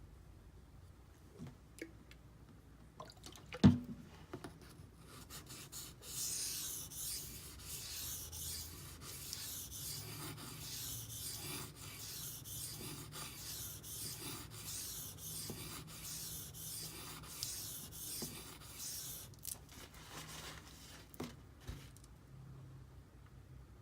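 Knife sharpening: a D2 steel blade on a Benchmade Griptilian drawn back and forth across a wet benchstone in even scraping strokes, about one and a half a second, for some thirteen seconds. A single sharp knock comes shortly before the strokes begin.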